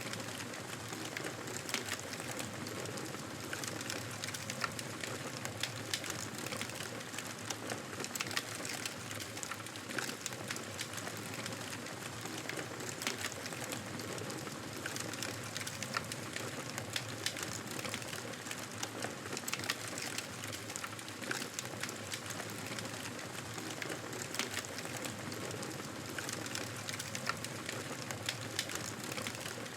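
Campfire of burning wood crackling, with frequent small snaps over a steady hiss.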